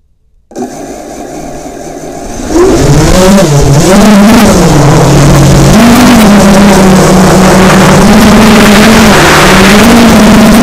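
FPV quadcopter's brushless motors and propellers, heard through its onboard camera. They start with a low hum about half a second in, then about two seconds later jump to a loud buzz whose pitch rises and falls with the throttle as the drone lifts off and flies.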